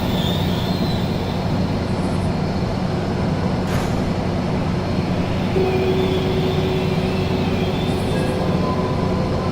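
A steady low mechanical rumble with a hum, like a large vehicle running, with a brief hiss about four seconds in.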